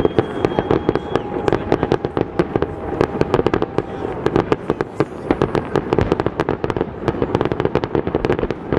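Fireworks display in a dense barrage, shells bursting in rapid crackling bangs several times a second, with a high whistle in the first second.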